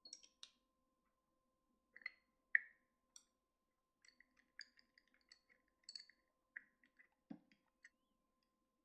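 Faint, scattered light clicks and taps of small hard objects being handled, with one duller knock about seven seconds in, over a faint steady tone.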